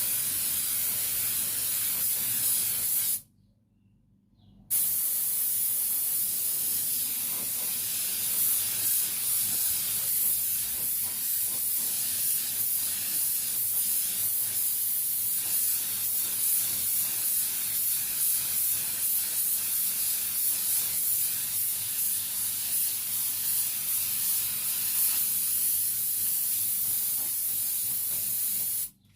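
Steady hiss of paint being sprayed onto motorcycle parts. It cuts off once for about a second and a half near the start, then runs on unbroken and stops abruptly at the end.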